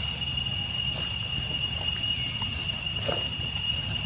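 Insects, cicadas or crickets, keeping up a steady high-pitched drone on one unchanging tone, over a low rumble.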